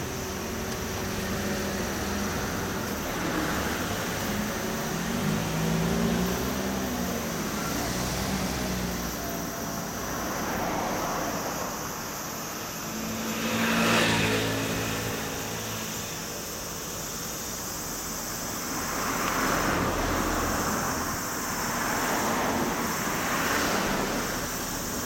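Road traffic passing by: vehicles go by one after another, each rising and fading away, the loudest about halfway through.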